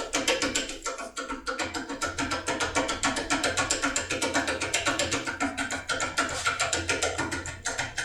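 Background music with a fast, steady percussive beat.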